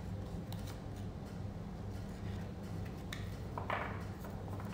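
Quiet room tone: a steady low hum, with a few faint ticks and a brief soft noise about three and a half seconds in.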